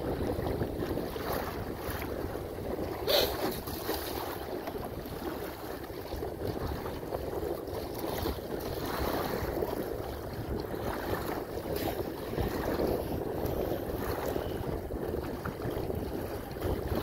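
Hobie Outback kayak hull pushing through wind-driven chop, water slapping and splashing at the bow, with wind buffeting the microphone. There is one sharper splash about three seconds in.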